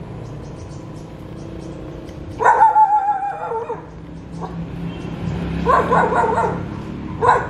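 Dog barking and yelping: a drawn-out wavering cry about two and a half seconds in, then short runs of quick barks a few seconds later and again near the end.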